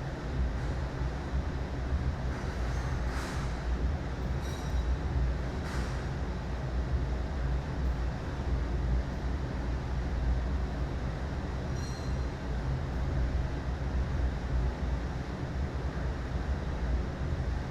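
Steady low rumble of background noise with a few faint, brief clinks.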